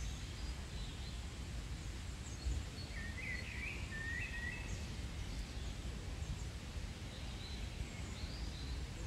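Outdoor garden ambience: small birds singing in short chirping phrases over a steady low rumble, the song clearest a few seconds in and again near the end.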